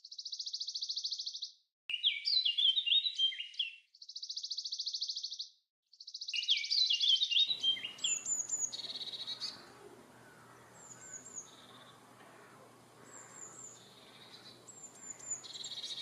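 Birdsong in two parts. For the first half, a songbird repeats a fast, even trill alternating with a quick series of stepped notes, with short silent gaps between phrases. Then a Eurasian blue tit sings short groups of very high, thin notes mixed with lower trills, over a faint steady outdoor hum.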